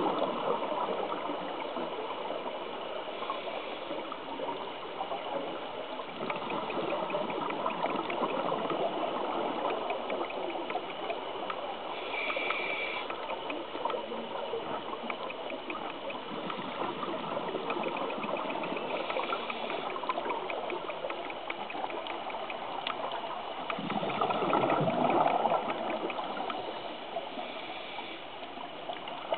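Scuba divers' exhaled bubbles gurgling and rushing underwater, swelling with each breath out; the loudest burst comes a few seconds before the end.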